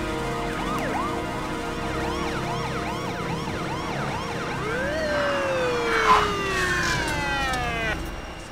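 Police car siren on fast yelp, its pitch sweeping up and down about three times a second. About five seconds in it rises once and then winds down in a long falling tone that stops near the end. A brief sharp noise comes about six seconds in.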